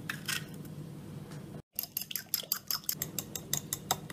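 Light kitchen clicking of a metal spoon against a glass mixing bowl: a few scattered taps, a short break in the sound, then a quick run of small clicks, several a second.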